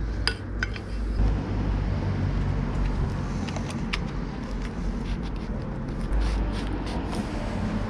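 Scattered metallic clinks and knocks of motorcycle handlebar parts and tools being handled, over a low rumble.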